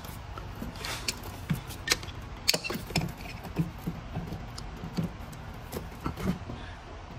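Pliers working a spring hose clamp on a heater hose fitting: irregular small clicks and light knocks of tool and metal clamp, over a low steady hum.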